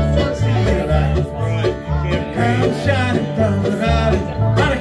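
A live bluegrass band playing with mandolin, acoustic guitar, banjo and upright bass. The upright bass keeps a steady beat of about two notes a second under the plucked strings.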